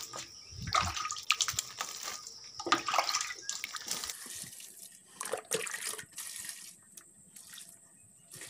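Water being poured onto potted plants, splashing unevenly onto leaves and soil; the splashes thin out after about four seconds and grow sparse and faint.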